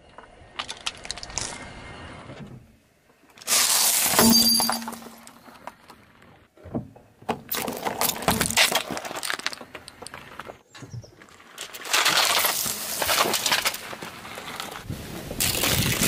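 A car tyre rolling over and crushing objects on asphalt: plastic cracking and breaking in several separate crunching bursts, each a second or two long.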